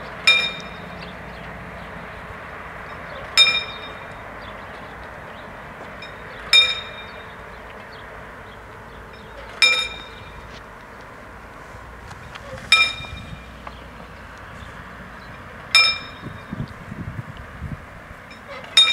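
Level-crossing warning bell striking once every three seconds or so, seven ringing strokes in all: the signal that the barriers are coming down for an approaching train.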